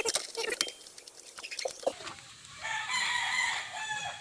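A rooster crows once, starting about two and a half seconds in and lasting over a second. Before it, a few sharp metal clicks and taps from hand tools.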